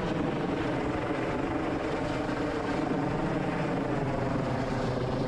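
MH-65 Dolphin helicopter running steadily, its rotors and turbine engines making a constant, even drone with no change in pitch.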